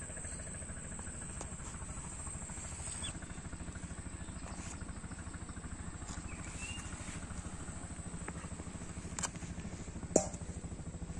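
Cut chunks of fish dropped into a stainless-steel bowl: a soft knock about nine seconds in, then a sharp metallic clink with a brief ring a second later. Underneath is a steady low hum and a thin high whine.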